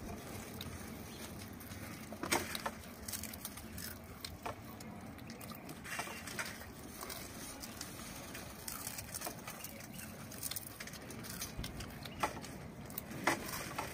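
Potato wafers being crunched and chewed, with scattered sharp crackles and clicks.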